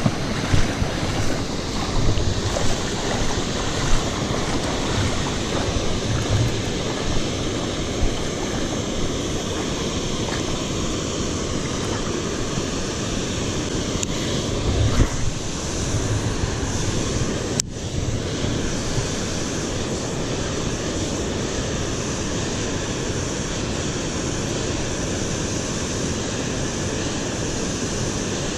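Steady rushing noise of river water and wind blowing across the microphone, with a few louder bumps in the first few seconds.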